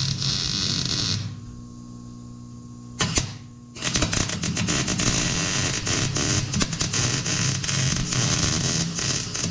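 Wire-feed welder arc crackling as it lays spot welds on steel: one weld stops about a second in, a short zap follows around three seconds, then a long continuous bead crackles steadily from about four seconds on.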